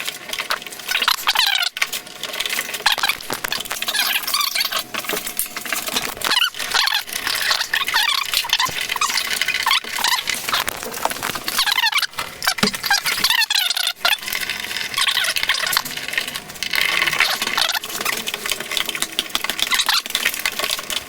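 Plastic parts of a car door lock actuator being worked and snapped together by hand: irregular squeaking, scraping and small clicks of plastic rubbing on plastic.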